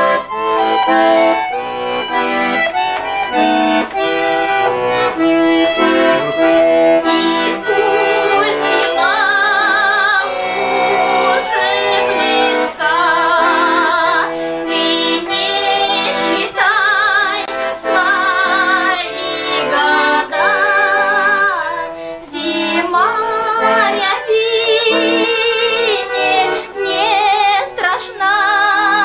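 Accordion playing a lively tune, with singing in long, wavering high notes over it from about nine seconds in.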